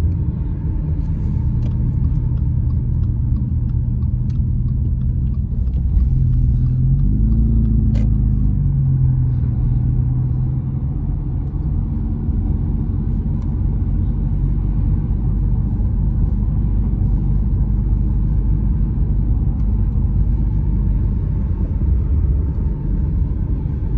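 Car interior while driving: a steady low rumble of engine and tyres on pavement, heard from inside the cabin. About a third of the way in, the engine note rises briefly and settles again.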